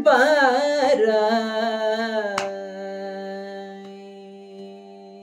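Female Carnatic vocalist singing in raga Madhyamavati, ending an ornamented phrase with wavering gamakas on a long held note over a steady drone. About two and a half seconds in the voice stops with a sharp tap, and the drone carries on fading. Another tap comes near the end.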